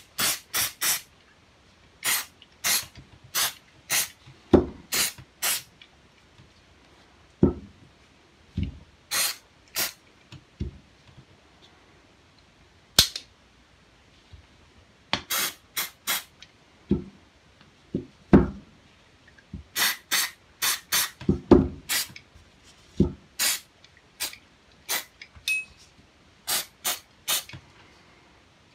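Aerosol gun cleaner sprayed in many short hissing squirts, in quick groups of two to five with pauses between, while cleaning a stainless derringer. A few dull knocks come from parts being handled, the loudest about 7 and 18 seconds in.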